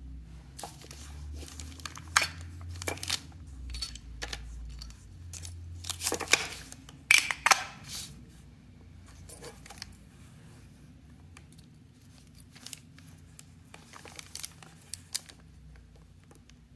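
Handling noise on crumpled kraft paper: paper crinkling and a run of sharp clicks and taps as a small plastic case is opened and handled, loudest in the first half. Fainter small clicks follow as a CR2032 coin cell is fitted into a small earring circuit board.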